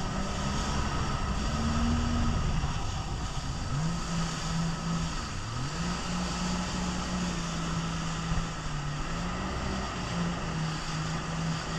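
Jet ski engine running under way, its note dropping about four seconds in and climbing back a second or so later, with a smaller dip near the end. A steady rush of water spray and wind runs underneath.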